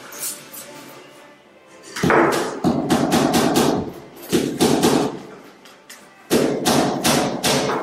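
Rapid runs of sharp knocks and scraping from hand work on a ceramic tile skirting strip being fitted at the foot of a wall. The knocking starts about two seconds in and comes in three runs with short pauses between them.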